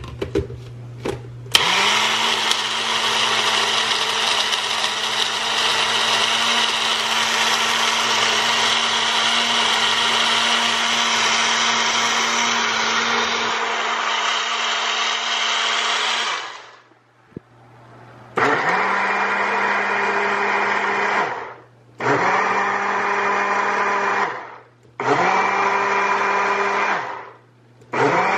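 Single-serve personal blender blending ice and fruit: a few clicks as the cup is seated, then the motor runs steadily for about fifteen seconds and stops. It is then pulsed in three short bursts of two to three seconds each, with a fourth starting at the very end.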